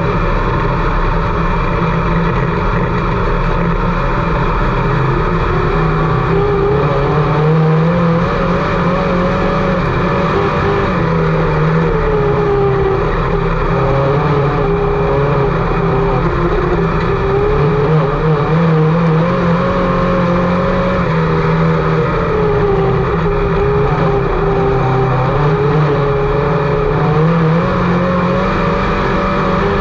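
IMCA Sport Mod race car's small-block V8 running hard on a dirt oval, its pitch climbing and dropping again in repeated cycles of several seconds as the car accelerates and lifts around the track.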